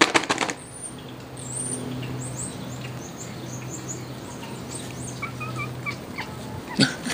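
Domestic cat purring steadily while being stroked, with small birds chirping faintly in the background. A few handling knocks come right at the start.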